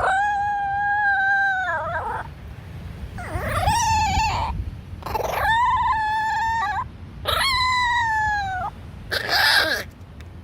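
A dog howling: four long, steady howls, each dipping in pitch as it ends, then a short rough burst near the end.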